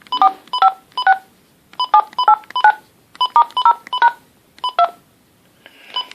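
Touch-tone (DTMF) dialing on a Uniden 5.8 GHz cordless phone handset as digits are keyed in: about fourteen short two-note beeps in quick runs of two to four, with brief pauses between the runs.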